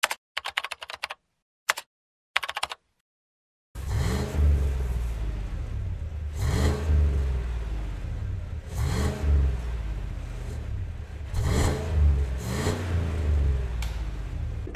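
Cadillac Escalade's 6.2-litre V8 idling through its stock exhaust, blipped four times so the revs rise and fall back. Before the engine comes in there are a few short crackling bursts and a moment of silence.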